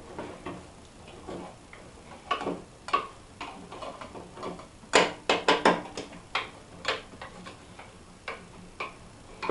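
Hand screwdriver working screws out of a copier's sheet-metal frame: scattered small metal clicks and ticks, with a quick run of several clicks about five seconds in.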